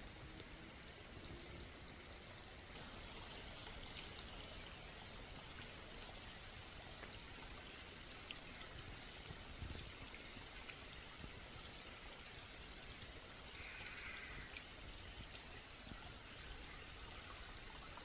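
A small burn (stream) flowing, a faint, steady rush and trickle of water.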